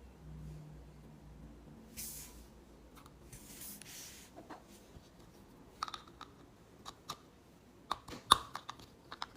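Plastic packaging rustles briefly twice, then tiny plastic miniature pieces give a run of light clicks and taps as they are handled and set down.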